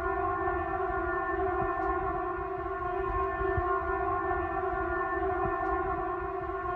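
Steady, unwavering alarm tone with several overtones, like the steady alert signal of a civil defense siren, holding one pitch with no rise or fall, over a faint low rumble.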